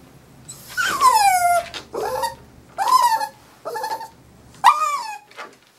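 Muzzled Havanese crying out in protest at having his nails trimmed: about five high, sharp cries, each falling in pitch, the first about a second in.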